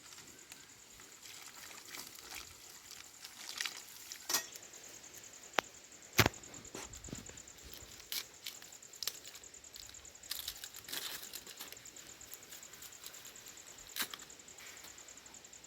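Scattered clicks and knocks of hands and utensils working with food, with one sharper knock about six seconds in, over a steady high-pitched trill that stops near the end.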